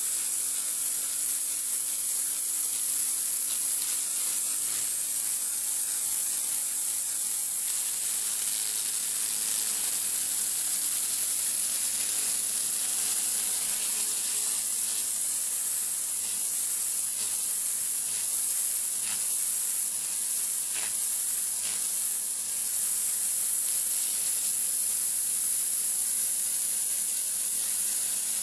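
Kärcher K3.550 pressure washer firing its rotating 'dirt blaster' jet onto concrete patio slabs: a steady hiss of high-pressure water spraying on stone as the grime is blasted off.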